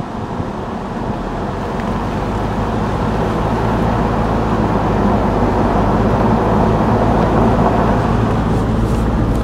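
Engine hum and road noise of a moving car, heard from inside the vehicle. It grows louder over the first few seconds, then holds steady.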